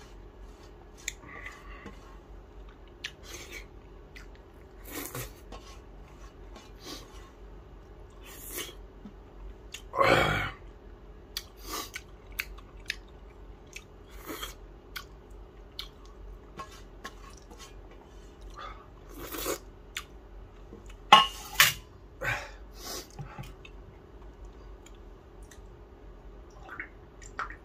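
A person eating chicken sausage by hand: chewing and mouth clicks, with fingers scraping in a steel bowl. There is a louder, short noisy sound about ten seconds in and a quick run of sharp clicks around twenty-one seconds.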